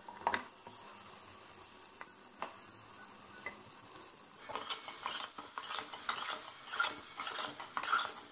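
Raw mutton pieces sizzling faintly in hot oil in an aluminium pressure cooker. From about four and a half seconds in, a metal spatula scrapes and clicks against the pot as the meat is stirred through the onions and spices.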